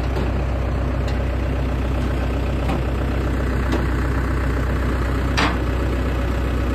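Engine of a tractor or loader idling steadily, with a few light clicks and knocks over it.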